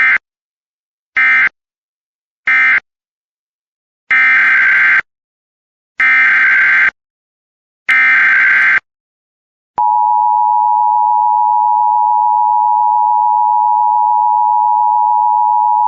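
Emergency Alert System signals. Three short bursts of SAME digital data end the previous message. Three longer screeching SAME header bursts follow, about two seconds apart. About ten seconds in, the steady two-tone EAS attention signal starts and holds.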